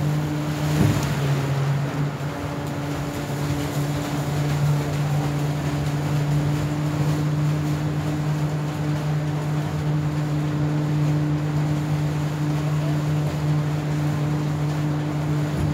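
River ferry's engine running steadily under way, a low even drone with a hum, over the rush of its prop wash.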